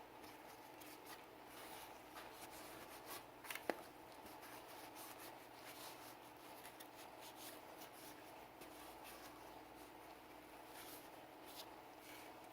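Faint, repeated rubbing and scratching strokes from cleaning a Sig Sauer P320 pistol, with one sharp click about three and a half seconds in.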